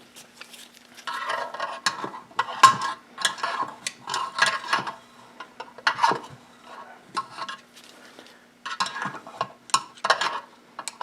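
Irregular clattering and swishing as a lawn mower's small fuel tank and carburetor parts are handled and cleaned out, with a faint steady hum underneath.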